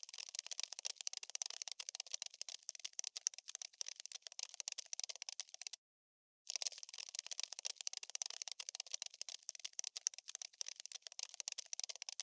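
Scurrying-cockroach sound effect: a fast, dry, thin scratching and clicking like insect legs skittering over a hard surface. It breaks off for about half a second near the middle, then starts again, as a looped effect.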